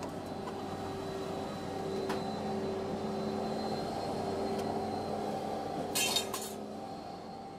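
Steady engine hum with a few sharp metallic clinks of scrap steel, a cluster of them about six seconds in.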